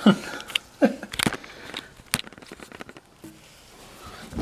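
Plastic sink drain pipe being pulled out of its fitting and handled: a few short scraping slides of pipe in the joint and several sharp knocks and clicks.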